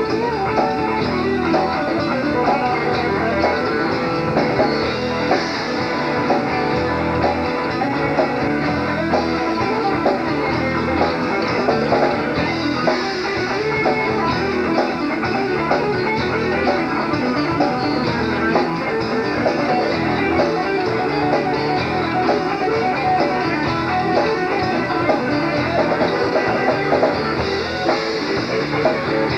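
Southern rock band playing a full-band song: two guitars over bass and a drum kit.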